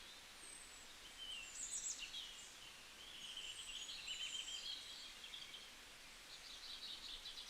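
Wild birds singing and calling over a faint steady hiss: short high chirps and quick trilled phrases from more than one bird, with a longer trill from about three to five seconds in.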